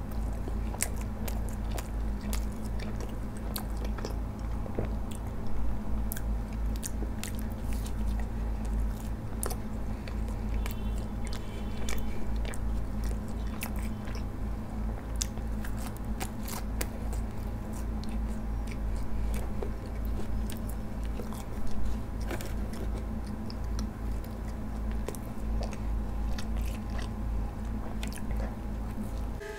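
Close-miked eating of stuffed garlic bread: biting and chewing, with crunching from the crust and many small wet mouth clicks throughout. A steady low hum runs underneath.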